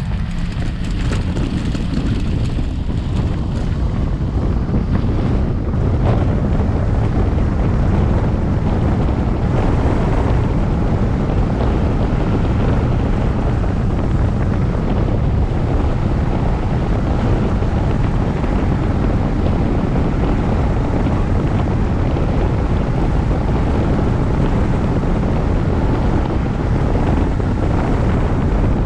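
Wind rushing over the microphone of a camera on a tandem hang glider during its aerotowed takeoff and climb, a heavy low buffeting that builds over the first few seconds and then holds steady.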